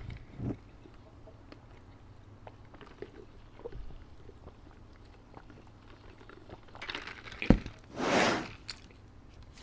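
Close-miked eating of McDonald's food: soft chewing and small crunches with a few light knocks. A sharp knock comes about seven and a half seconds in, followed by a brief half-second rush of noise.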